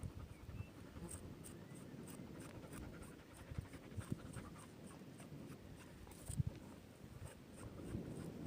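A dog panting close by, amid soft scratchy rustling and small clicks.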